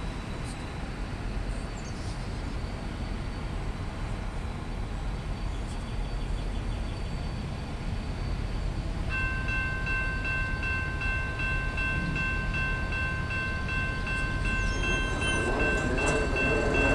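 Norfolk Southern GE C44-9W freight locomotive approaching in the distance: a low rumble that slowly grows louder. About halfway through, its air horn sounds one long, steady chord.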